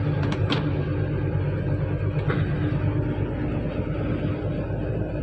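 A truck's diesel engine runs steadily under way, heard inside the cab as a low drone. A few short clicks come through it, two in the first moment and one about two seconds in.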